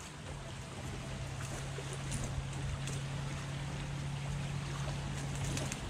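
A steady low motor drone that stops suddenly near the end, over a hiss of wind and a few faint clicks.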